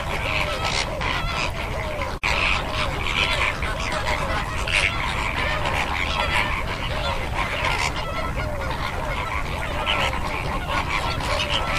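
A flock of greater flamingos calling together: a continuous, dense chatter of many overlapping goose-like honks. The sound drops out for an instant about two seconds in.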